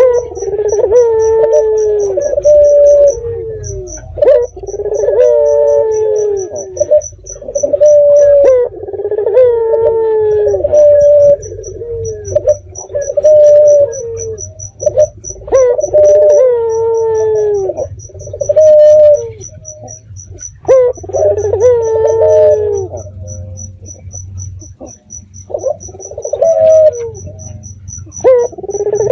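Barbary dove (burung puter) cooing over and over, a low gliding coo phrase every two seconds or so, with a steady fast high chirping of insects behind it.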